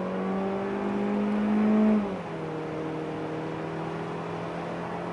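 Mazda CX-30 Skyactiv-X 2.0-litre four-cylinder petrol engine, heard from inside the cabin, accelerating hard under full throttle, its pitch rising and getting louder. About two seconds in, the automatic gearbox shifts up: the revs and the sound drop, and the engine pulls on at a lower, steady pitch.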